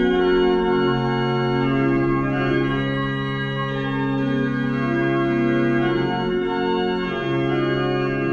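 Church organ playing slow, held chords that change every second or two.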